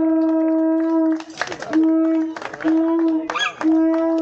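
Conch shell horn blown in steady held blasts on one note. A long blast breaks off about a second in, followed by two short blasts and then another long one that starts near the end.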